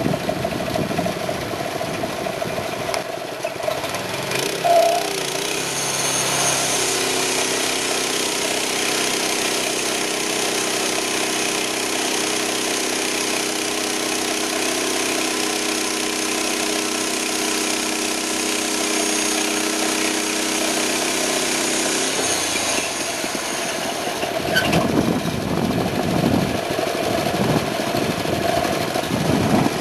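Portable band sawmill's 6.5 HP Honda single-cylinder engine running steadily. From about six seconds in to about twenty-two seconds the sound turns even and smooth with a hiss over it, then goes back to a rougher running.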